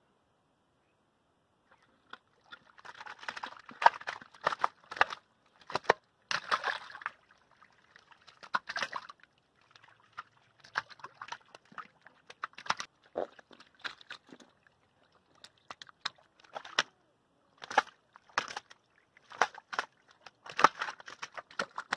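Catfish thrashing in shallow muddy water in a mud-walled trap: irregular wet slaps, splashes and sloshing, starting about two seconds in.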